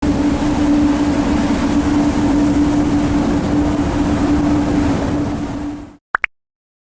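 Engine running steadily under a loud wash of noise, with one steady droning tone, cutting off abruptly about six seconds in; two short high beeps follow.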